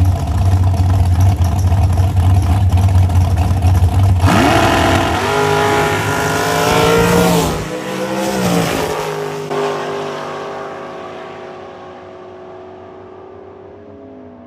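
Drag race cars holding a heavy low rumble at the line, then launching at full throttle about four seconds in. Their engine notes climb in pitch through several steps, then drop and fade away as the cars run off down the track.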